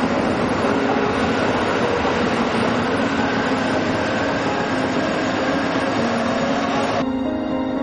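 A loud, steady rushing noise over soft sustained low notes of film music; the noise cuts off suddenly about seven seconds in, leaving only the music.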